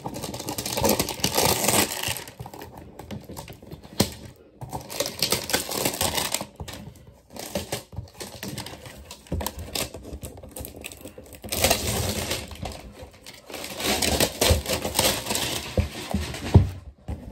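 Plastic shrink-wrap crinkling and tearing as it is peeled off a cardboard box by hand, in several stretches of crackly rustling with short pauses between.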